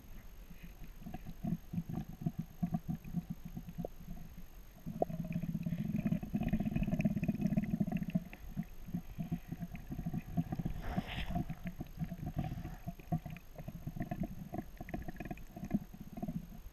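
Muffled underwater noise picked up by a submerged camera in its waterproof housing: a low, uneven rush of moving water with rapid crackles and knocks, louder for a few seconds around the middle.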